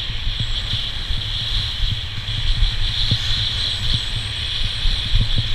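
Skis sliding over packed snow with a steady hiss, mixed with wind rumbling and buffeting on a moving action-camera microphone and many short low thumps.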